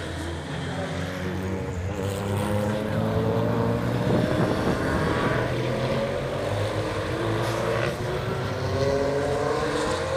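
Race car engines running hard as the cars accelerate, their note rising steadily in pitch over several seconds, twice in a row.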